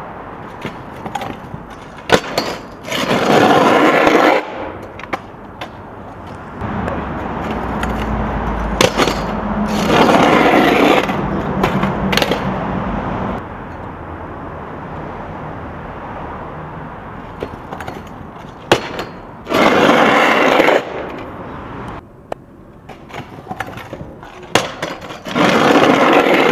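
Stunt scooter on a concrete bank: its hard wheels roll loudly past four times, each pass lasting about a second and a half, with sharp clacks of the scooter striking the concrete in between.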